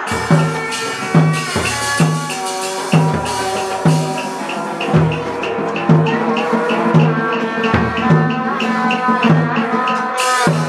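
Hát bội opera ensemble playing an instrumental passage. A drum beats a steady pattern about once or twice a second under held melodic lines, with quick regular high ticks of percussion through the middle.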